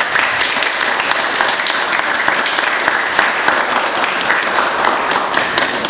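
Audience applauding, dense clapping at a steady level.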